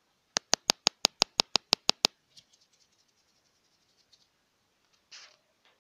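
A rapid run of about a dozen sharp, even clicks, some six a second, that stops after under two seconds. Faint scattered ticks follow, then a short soft rustle near the end.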